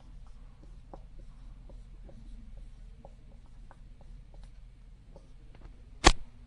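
Writing on a board: a run of light taps and scratches from the writing stroke, with one sharp, louder knock near the end.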